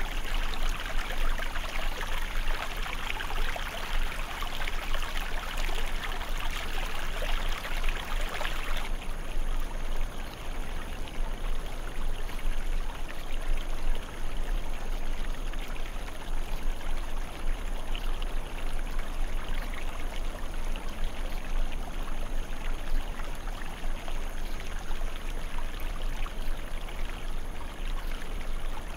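Small stream splashing and rushing over rocks, a steady, even water noise. About nine seconds in it turns abruptly duller and softer, and a steady rushing continues after that.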